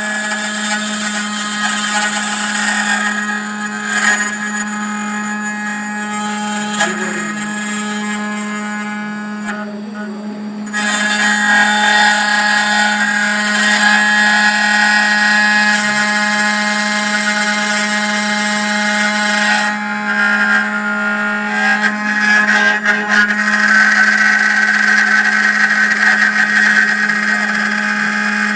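N-Gravetek Y4S desktop CNC engraving machine running, its spindle and end mill cutting a three-dimensional bust: a steady hum under a high whine with a cutting hiss. The cutting grows louder about eleven seconds in.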